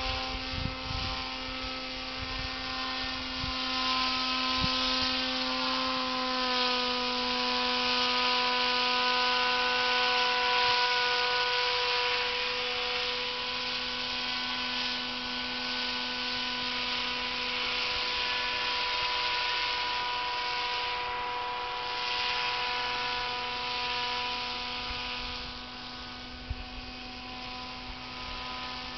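Steady droning hum of a powered paraglider's motor and propeller flying overhead, holding one pitch with a slight drop about six seconds in. There are a few low thumps in the first five seconds.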